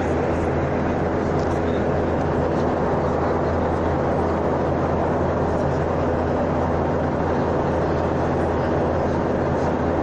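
Steady in-flight cabin noise of a passenger plane: the even rush of airflow and engines, with a low steady hum underneath.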